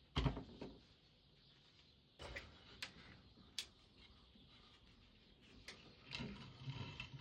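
Scattered sharp clicks and light knocks a second or so apart, with a louder one at the start and a busier cluster of softer knocks and rustling near the end.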